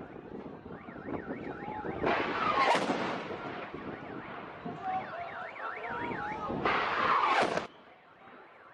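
Two rockets launching in a barrage, each a loud rushing blast with a sudden start, about 2 seconds in and near 7 seconds; the second cuts off abruptly. Between them, a fast-warbling alarm-like tone rises and falls several times a second.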